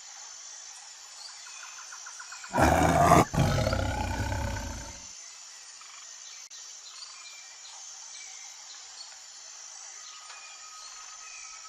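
A single loud, deep animal roar about two and a half seconds in, lasting about two and a half seconds with a short break partway and fading at the end. It sits over a steady high-pitched insect chorus with faint bird chirps.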